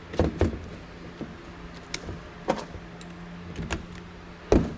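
Scattered clicks and knocks of a cordless driver and a steel computer case being handled on a workbench, about seven in all, the loudest a heavy knock near the end, over a steady low hum.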